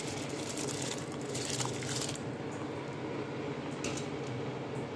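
Soaked basmati rice poured from a plastic colander into a pot of boiling spiced water, a splashing hiss for about the first two seconds, then the water bubbling, over a steady low hum.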